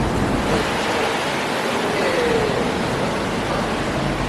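Steady rushing noise of a busy city street, with faint voices.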